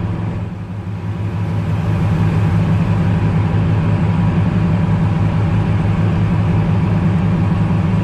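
Fishing boat's engine running with a steady low drone, getting louder over the first two seconds and then holding level.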